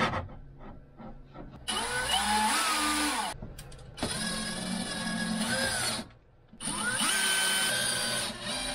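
Cordless drill running in three bursts of about two seconds each, its motor pitch climbing and dropping within each burst.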